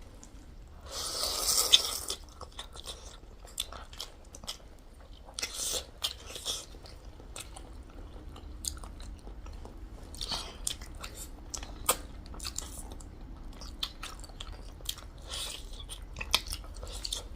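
Eating spicy chicken wings: biting and chewing, with short wet mouth clicks and crunches scattered throughout. A louder rushing noise comes about a second in and lasts about a second.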